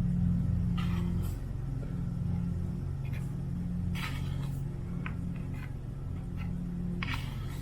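A steady low hum with short rustling handling noises on top, about five times, during hand work at a bench.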